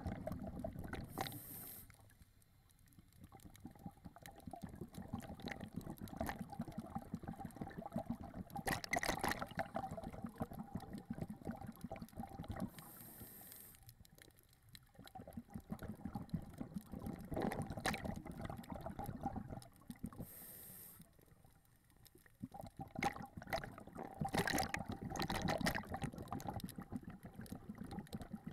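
Scuba diver breathing underwater through a regulator: three short hisses of inhalation, each followed by several seconds of bubbling exhalation.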